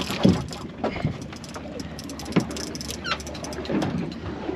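Boat's Suzuki outboard idling as a steady low hum, under irregular sharp clicks and knocks. About three seconds in there is one short falling whistle-like call.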